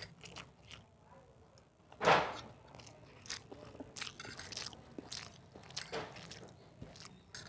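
Close-up chewing and crunching of dry fried noodles, with short clicks from a fork working on the plate. One much louder sound comes about two seconds in.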